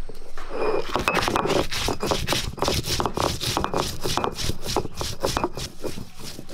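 Stone roller on a flat grinding stone crushing dried red chillies: repeated gritty scraping and crunching strokes as the stone is worked back and forth, starting about half a second in.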